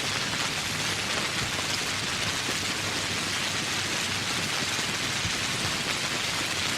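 Steady, even rain falling, a dense hiss of many drops hitting surfaces.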